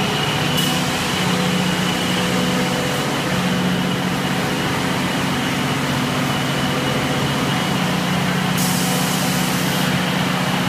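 Terrazzo tile-making machine running steadily: a constant low hum with a thin high whine over broad mechanical noise, and a hiss that comes in for about a second near the end.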